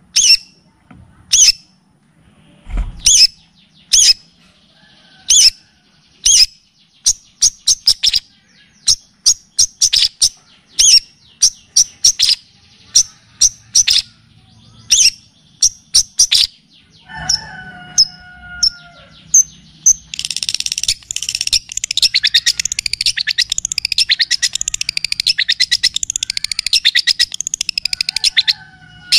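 Recorded songbird song: sharp, high single chirps about a second apart that quicken into rapid runs, a few lower whistled notes, then, about 20 seconds in, a long, fast, dense trill. A faint low hum sits underneath.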